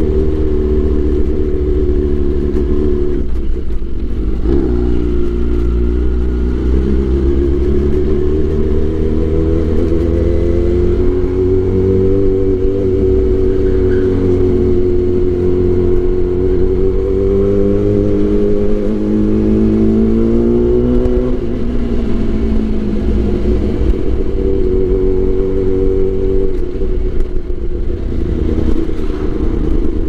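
Kawasaki Ninja ZX-10R's inline-four engine running under way, its pitch rising and falling with the throttle. The pitch drops about four seconds in, climbs over the next several seconds, rises again and falls away sharply after about twenty-one seconds.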